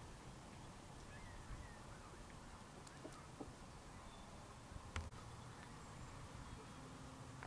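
Faint outdoor ambience with a few short, faint bird chirps and one sharp click about five seconds in.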